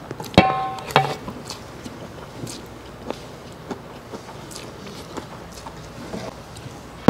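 Metal fork striking a stainless steel bowl twice in the first second, each strike ringing briefly, followed by soft chewing and eating sounds of fried glass noodles.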